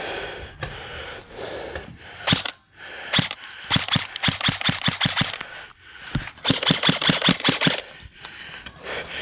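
M4-style airsoft rifle firing: two single shots, then two rapid bursts of about seven shots a second, each a little over a second long.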